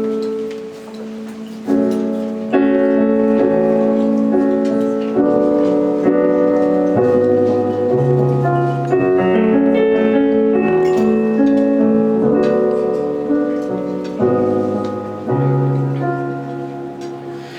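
Piano playing a slow instrumental song intro: sustained chords change every second or two over a moving bass line, with no singing.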